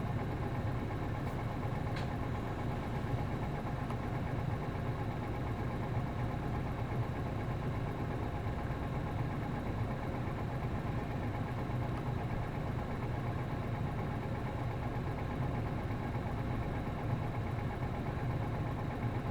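A route bus's MD92TJ turbo-diesel engine idling steadily, heard close to the engine, with no change in pitch.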